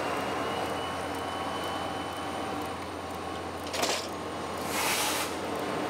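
Passenger train coaches rolling past a station platform as the train pulls out: a steady rumble and rattle of wheels and bodies, with a sharp click a little before four seconds in and a short hiss about five seconds in.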